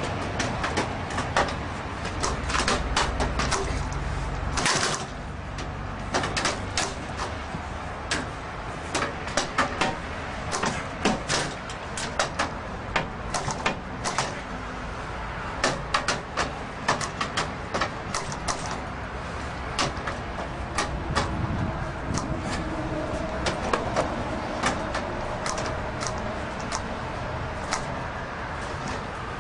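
Steel pry bar levering and knocking against a steel expanding security gate, the gate's metal lattice rattling and clanking in irregular clicks and knocks throughout.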